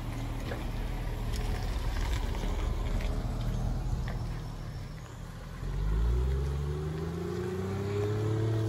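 2020 Land Rover Defender's engine running at low speed with a steady rumble, then revving up about six seconds in, its pitch rising and getting louder as the vehicle accelerates away.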